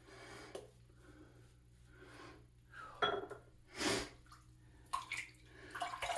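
Short sniffs and breaths from the shaver, with a few small clicks and light water sounds from handling shaving gear at the sink.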